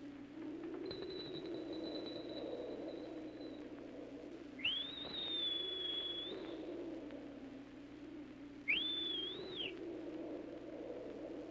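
High-pitched whistling, three times: a long steady note, then one that swoops up and holds, then a short swooping one that is the loudest. Underneath, a low wavering hum continues throughout.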